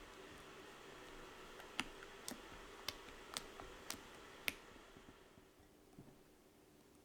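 Six sharp clicks, about half a second apart, over a faint steady hum that drops away near the end.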